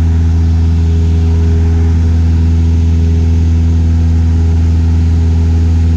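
Cessna 172S's four-cylinder Lycoming engine and propeller running steadily in flight: a loud, even drone with no change in pitch.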